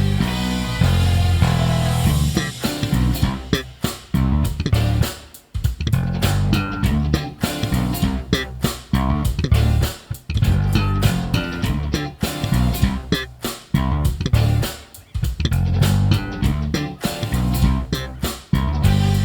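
Zeline J5 five-string electric bass, a Jazz Bass-style instrument, being played: a line of deep notes with sharp, percussive attacks. The playing drops out briefly about five and a half and fifteen seconds in.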